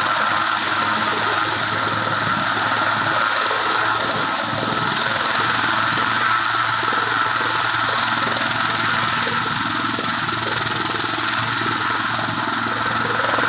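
Helicopter running steadily on its engine and rotor, a constant high whine over a broad engine noise with no change in pitch.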